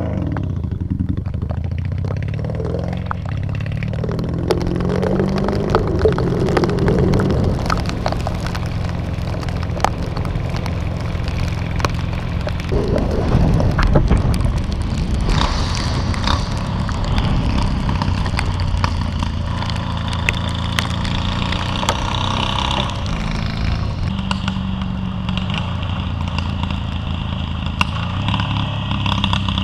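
A vehicle engine pulling away and climbing in pitch through several gear changes, then running at a steady cruise, over constant road and wind noise.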